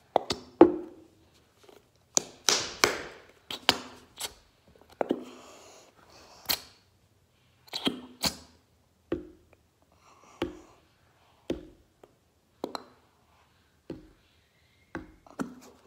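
A plastic glue bottle being squeezed hard, sputtering and squelching in short irregular bursts, about one a second, as the last glue and air are forced out of the nozzle.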